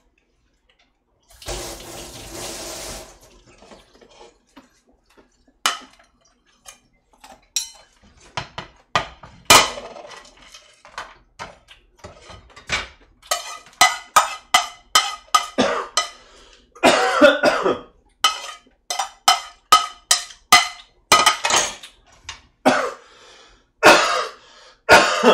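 A kitchen tap runs briefly near the start. Then a chef's knife chops green onion on a plastic cutting board, a few scattered strokes at first and a quick run of repeated chops through the second half.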